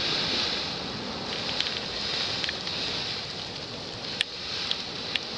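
Steady outdoor noise with wind on the microphone, a high hiss and a few faint, scattered ticks.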